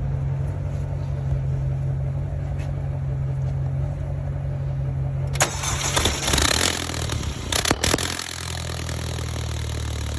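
2016 Mercedes-Benz CLA four-cylinder engine being started about five seconds in, over a steady low hum. After about three seconds of loud, uneven starting noise it settles into a steady, lower run. The engine's exhaust is blocked by ice frozen inside the muffler, which makes it shut off soon after starting.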